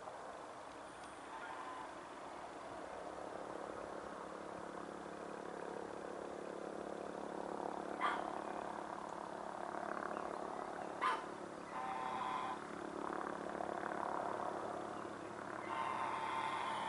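MD 902 Explorer helicopter, a twin-turbine NOTAR design with no tail rotor, flying past: a steady drone from the engines and main rotor that slowly grows louder. Two sharp clicks stand out, one about eight seconds in and another about three seconds later.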